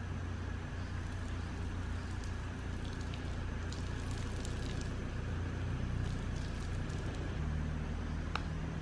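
Water running from a campground tap and splashing onto the ground, with scattered drips, over a steady low hum.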